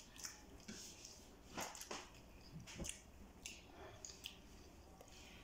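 Faint eating sounds: chewing, and fingers pulling at pieces of chicken on plates, with a few small clicks and smacks spread through.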